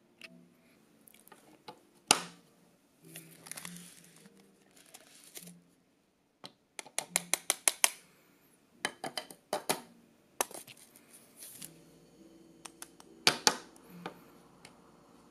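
Parts of a Kompresso hand-pressed espresso maker being handled and fitted together: light clicks, knocks and short scrapes of plastic and metal, with a quick run of about eight light taps about seven seconds in and two sharper knocks, one about two seconds in and one near the end.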